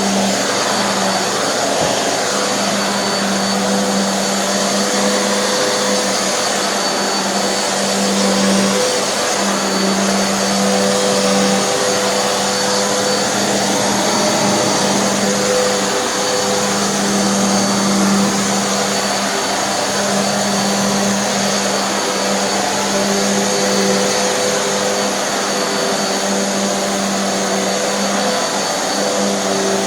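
Hoover NanoLite upright vacuum cleaner running steadily, its motor making a loud whirring rush with a hum that briefly falters a few times. This is a durability test run of the brushroll, whose idler pulley has been hot-glued to the roll.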